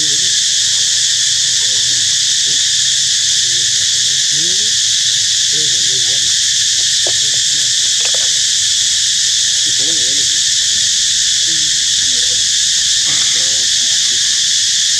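Steady, high-pitched drone of an insect chorus that does not let up, with faint distant voices underneath.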